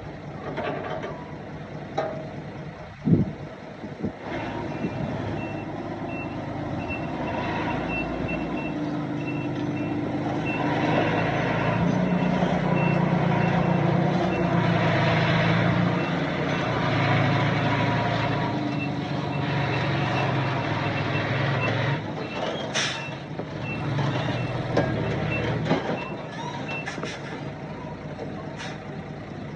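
Reversing alarm beeping about twice a second as a heavy diesel machine backs up; its engine grows louder under load, then eases. A sharp bang about three seconds in.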